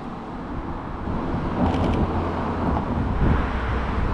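City street traffic: a motor vehicle passing, with a low rumble that grows louder about a second and a half in.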